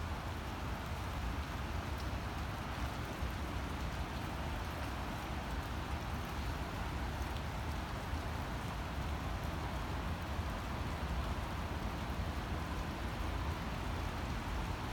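Steady rain falling, a constant hiss with a few faint drop ticks over a low rumble.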